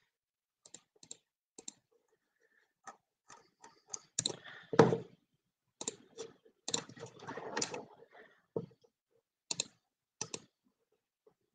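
Irregular clicks and taps of a computer keyboard and mouse, with a heavier knock about five seconds in.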